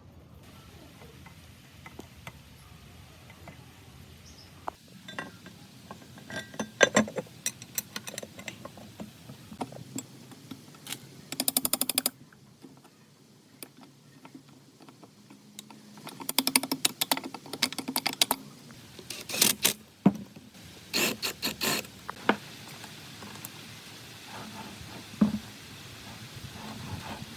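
Hand work on the parts of an old electric cable winch: bursts of quick light clicking and rattling in several clusters, with quieter gaps between.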